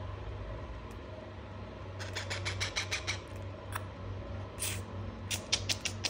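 Baby parrot chick calling in two short runs of rapid raspy pulses, about ten a second, starting about two seconds in and again near the end, over a steady low hum.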